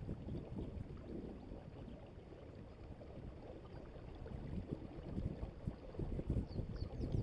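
Low, uneven rumble of wind on the microphone and water washing along the hull of a Hobie Adventure Island sailing kayak under sail, growing louder near the end.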